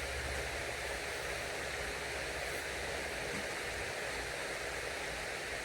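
Steady outdoor background hiss, even and unchanging, with no distinct events.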